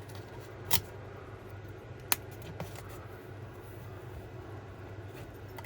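Small parts being handled at a workbench: two sharp clicks, one a little under a second in and a louder one about two seconds in, over a steady low hum.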